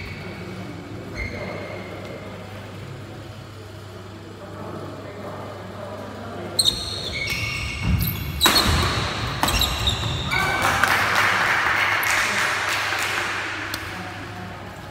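Badminton doubles rally on a wooden indoor court: sharp shuttlecock hits off the rackets and short squeaks of shoes on the floor, in a reverberant hall. A few seconds of louder, noisy sound follows, from about ten seconds in.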